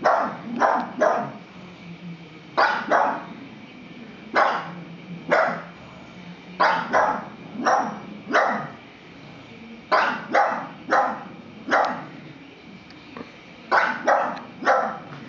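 A pug barking repeatedly, sharp single barks in irregular bunches of two to five with short pauses between: alarm barking at an unfamiliar object, a plastic toy horse.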